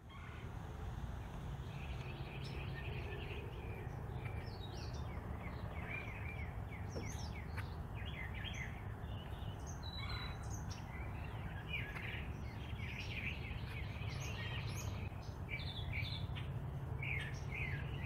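Several small songbirds chirping and calling in quick, overlapping notes, over a steady low rumble.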